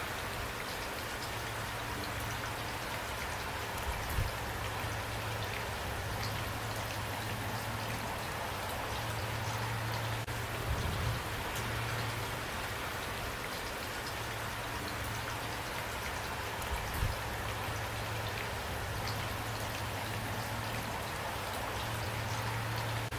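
Steady rain falling, with scattered close drops tapping. A few dull low thumps stand out, about four, eleven and seventeen seconds in.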